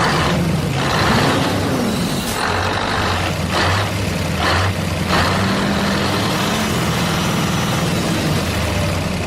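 Truck engine running steadily, with several short hisses like air brakes in the first five seconds.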